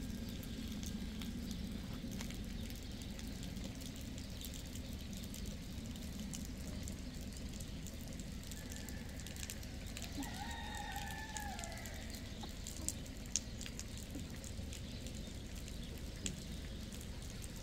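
Quiet village street ambience with a steady low rumble, and about ten seconds in a rooster crows once, a drawn-out call of about two seconds that falls away at the end.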